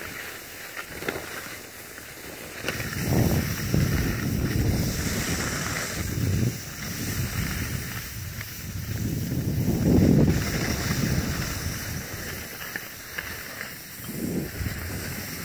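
Wind buffeting a moving phone microphone in rumbling gusts, loudest about ten seconds in, over a steady hiss of skis sliding on snow.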